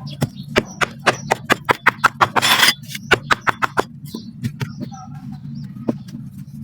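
Black sand being crushed and crumbled: a quick, irregular run of sharp gritty crackles, with a longer grainy rush about two and a half seconds in.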